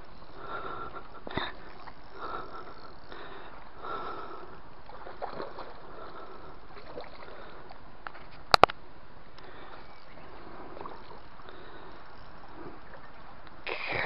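A large hooked carp splashing at the water's surface near the bank as it is played on the line, in short splashes every second or two. Two sharp clicks about eight and a half seconds in are the loudest sound, and a louder rustling burst comes near the end.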